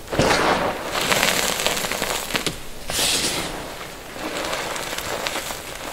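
Hands squeezing and crushing crumbly gym chalk powder: dry crunching and crackling in a few strong squeezes over the first three seconds, softer after about four seconds.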